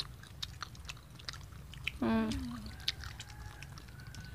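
People chewing soft fried pumpkin slices: small irregular mouth clicks, with a short vocal sound a little over two seconds in.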